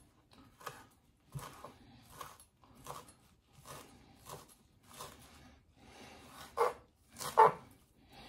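Chef's knife slicing fresh chives on a wooden cutting board: slow, steady cuts with a knock of the blade on the board about every 0.7 seconds, the two loudest near the end.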